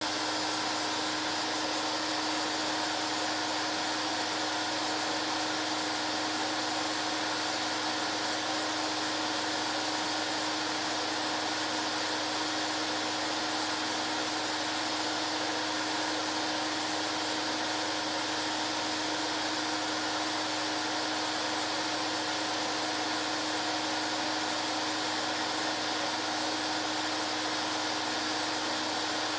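Home-movie film projector running: a steady mechanical whir of its motor, fan and film transport with a constant hum, unchanging throughout.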